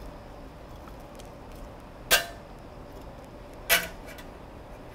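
Metal tongs clinking twice against stainless steel cookware, about a second and a half apart, over a faint steady hiss.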